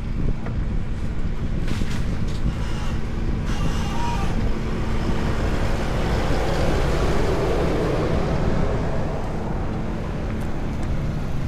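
A road vehicle passing by, swelling and fading between about six and nine seconds in, over a steady low rumble of wind on the microphone of a moving camera.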